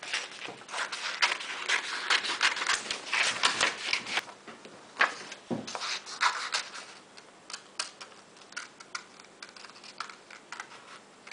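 Paper handled and rustled, with the crisp snips of scissors cutting a sheet of drawing paper. A busy run of crackling and clicking fills the first few seconds, and spaced-out single snips follow.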